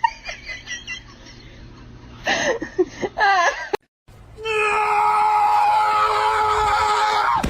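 A few short wavering cries, then a long steady scream held for about three seconds.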